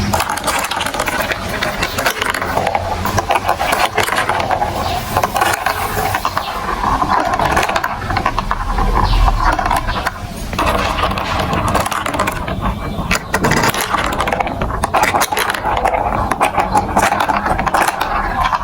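Marbles rolling and clattering through a plastic building-block marble run, a continuous rattle with many quick clicks.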